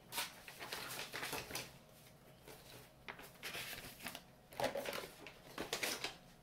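Someone rummaging through art supplies: irregular short bursts of rustling and clatter, several times.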